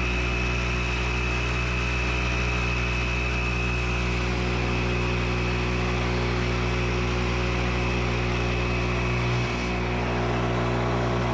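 Air compressor running steadily as it builds pressure and fills its tank: a loud, even motor-and-pump hum with a steady high whine over it.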